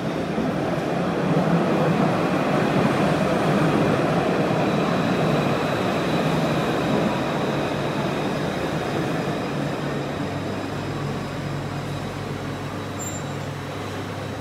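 Île-de-France T2 tram (Alstom Citadis) pulling into an underground station: the rumble of steel wheels on rail swells, then eases as the tram slows to a stop alongside the platform. A steady high whine comes in as it slows, and a low steady hum near the end.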